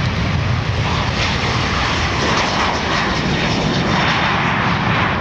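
Boeing P-8 Poseidon's twin CFM56-7B turbofan engines at takeoff power as the aircraft lifts off and climbs, a steady loud jet engine noise.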